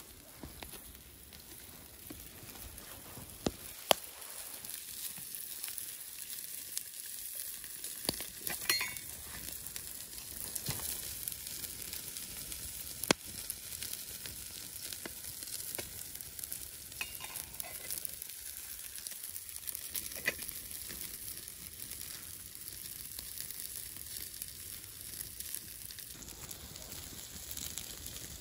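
Wood campfire crackling with a steady hiss and sharp pops every few seconds, and trout steaks sizzling on the hot stones beside it.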